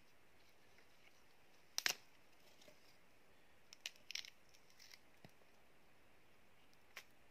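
Small bananas being snapped off a bunch and peeled by hand: one sharp snap just under two seconds in, then a few smaller cracks and tearing sounds of the skin around four seconds, and faint ticks near the end.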